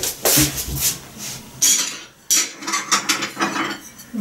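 Dishes and utensils clinking and clattering as they are handled, a string of short knocks and rattles.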